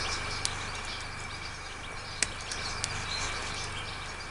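A few small sharp clicks, the loudest about two seconds in, from pliers twisting a wire tie that fastens the bonsai's trunk to its stake, over a steady low hum and hiss.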